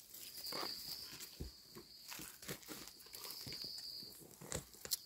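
Knife blade scraping and cutting soil off egg-stage Amanita mushrooms held in the hand: faint scattered scrapes and crackles. A high steady buzz comes and goes twice in the background.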